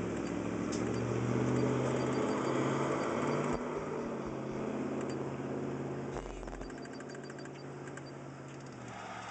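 Car audio subwoofers playing a bass-heavy song, held low bass notes stepping from one pitch to the next.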